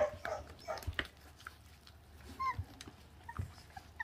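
Very young puppies, about 24 days old, tearing at raw meat on the bone, giving short whimpers and yips: a few brief cries in the first second and a high little whine about halfway through, with small clicks of chewing.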